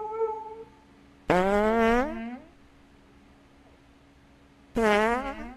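A husky's howl tails off at the start. Then come two loud, buzzing fart sounds, each starting suddenly: the first, about a second and a half long, rises in pitch; the second, shorter and near the end, dips and then rises.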